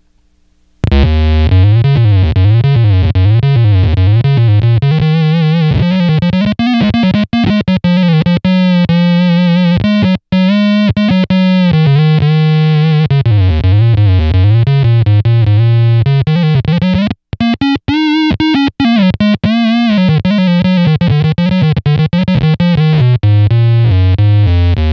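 Electric guitar played through an EarthQuaker Devices Bit Commander analog monosynth pedal on its one-octave-down voice: a synth-like single-note lead with string bends and vibrato, tracked fast and responsively. It starts about a second in, with a couple of short breaks between phrases.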